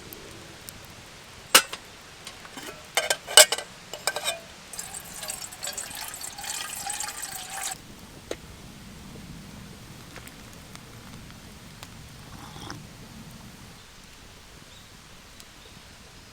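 Several sharp clinks and knocks, then liquid being poured into a vessel for about three seconds.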